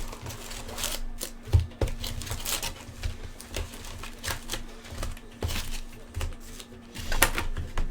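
Trading card box and foil packs being opened: irregular crinkling, rustling and tearing of wrappers, over a steady low hum.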